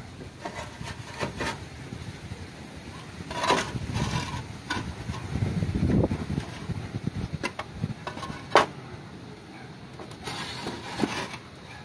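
Terracotta clay roof tiles knocking and scraping against one another as they are set and pressed into place. Scattered sharp knocks, the loudest about eight and a half seconds in, with low rumbling noise around the middle.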